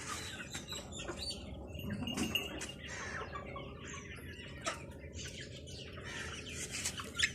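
Birds chirping, with chickens about, over a steady low background hum, broken by frequent short clicks and rustles.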